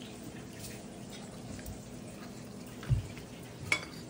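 Quiet room noise at a meal table, with a dull thump about three seconds in and a light clink of tableware near the end.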